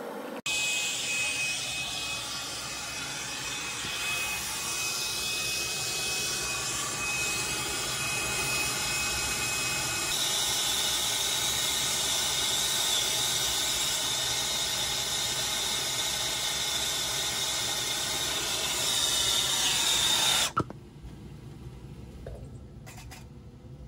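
Brazing torch flame hissing steadily while it heats copper refrigerant joints to unsweat them, with a thin whistle that steps up in pitch about halfway through. The hiss cuts off abruptly about twenty seconds in.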